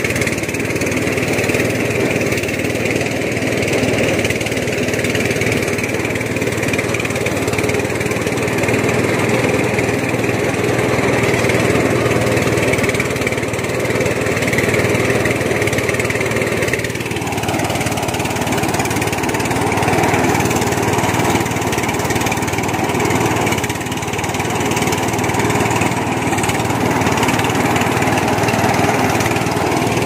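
Engine of a rice harvesting machine running steadily; a little over halfway through, its note shifts slightly lower.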